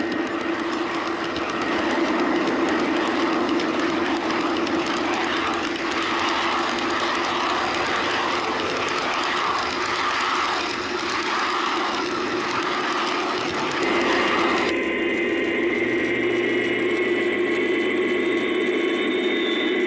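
G-scale model freight cars rolling close by on garden railway track, their metal wheels making a steady rushing clatter over a continuous engine hum from the Aristocraft GP-40 diesels' QSI sound decoders. About fifteen seconds in the rolling noise falls away, leaving the steady diesel hum.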